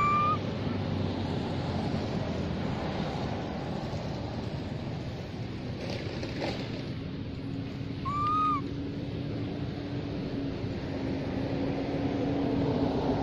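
Baby macaque giving two short, arched coo calls, one at the start and another about eight seconds in, over a steady background hiss. A low steady hum comes in around the middle.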